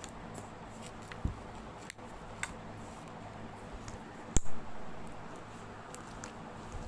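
Homemade glue-and-activator slime being kneaded and squished by hand, with scattered sharp clicks, the loudest about four and a half seconds in.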